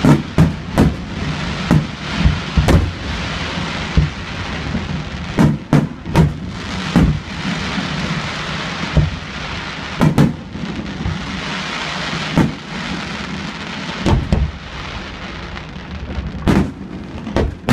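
Aerial fireworks shells bursting in a barrage: sharp bangs come several a second in the first half, then more spaced out, with a steady hiss between them.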